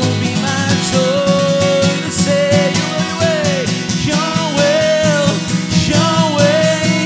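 A man singing a worship song while strumming an acoustic guitar, his voice holding and bending long notes over the steady strumming.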